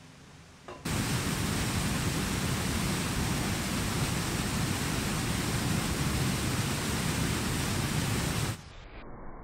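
Swollen stream pouring over a weir spillway and into rapids: loud, steady rushing water that starts suddenly about a second in and drops away abruptly near the end.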